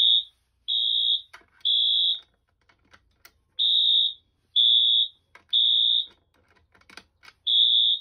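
Wheelock AS horn strobe sounding the temporal-3 evacuation pattern: three high-pitched beeps of about half a second each, a pause of about a second and a half, then three more, with faint clicks in the gaps. The alarm was set off by pulling a Simplex T-bar fire alarm pull station.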